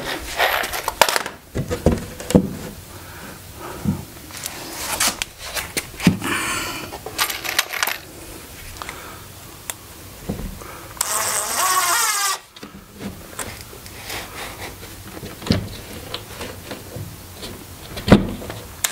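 Handheld power drill driving screws to fasten end pieces onto a plywood cabinet: two short runs of the motor whine, one about six seconds in and a louder one around eleven seconds, among knocks and clatter of handling the wood and tool.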